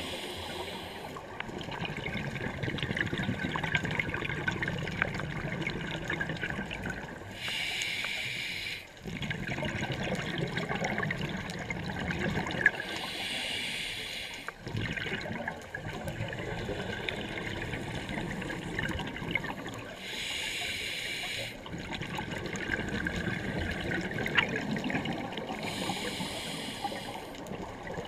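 A scuba diver breathing underwater through a regulator. A hissing inhale comes about every six seconds, and between the inhales the exhaled air bubbles and rumbles out.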